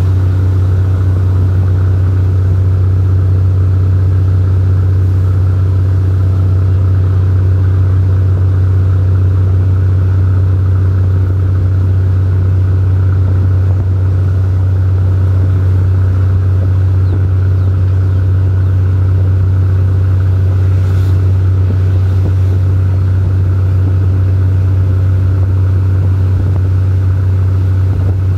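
Passenger train running steadily, heard at an open carriage window: a loud, constant low drone with no break.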